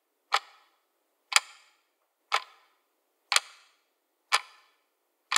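Clock ticking: one sharp tick about once a second, with silence between the ticks.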